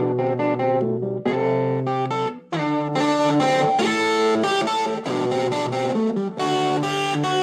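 Electric guitar played through a Ganesha distortion pedal: sustained distorted notes and chords, with a brief break about two and a half seconds in before busier playing resumes.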